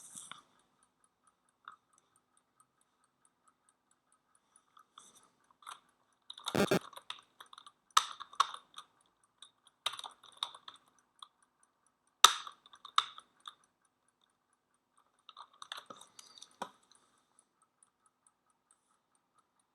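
Computer keyboard keys being typed in short, sporadic bursts of clicks, with one heavier thump about six and a half seconds in.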